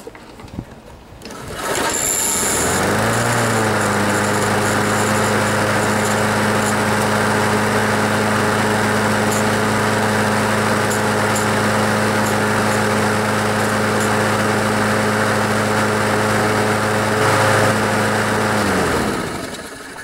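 Craftsman self-propelled push mower's Briggs & Stratton engine, pull-started: it catches about two seconds in, settles at once and runs steadily, then is shut off near the end and winds down to a stop. It runs good.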